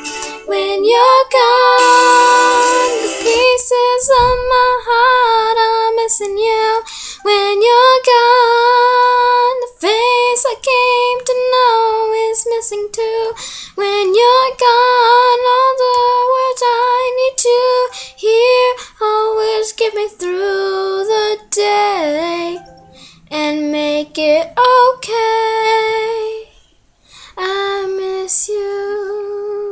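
A young girl singing alone, holding long notes with short breaks between phrases.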